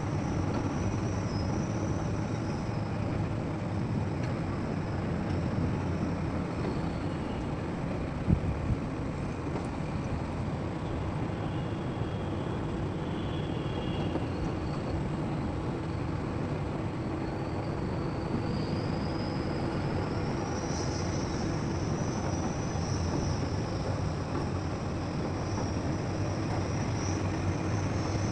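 Diesel engine of heavy earthmoving machinery running steadily, with one sharp knock about eight seconds in and a faint high whine that rises and falls.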